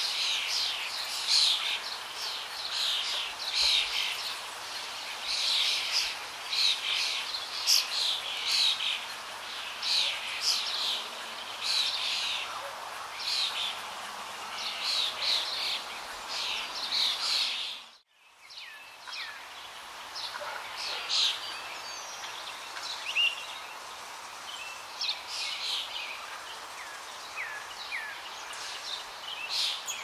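A chorus of songbirds chirping and calling over a steady background hiss. A little past halfway it cuts out suddenly for a moment, then comes back thinner, with fewer calls.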